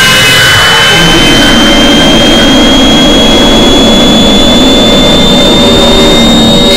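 Very loud layered harsh noise: a piercing high tone climbing slowly in pitch over a dense, rough roar.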